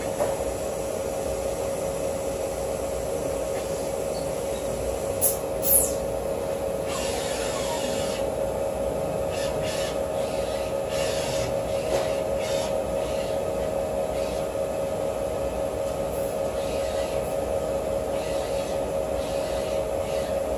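Tokyo Seimitsu UF2000 wafer prober running while it loads and aligns a wafer: a steady machine hum with a fixed droning tone. Two short high squeaks come about five seconds in, and stretches of hissing come and go after that.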